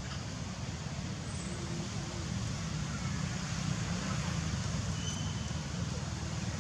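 Steady low rumbling outdoor background noise with a faint hiss above it.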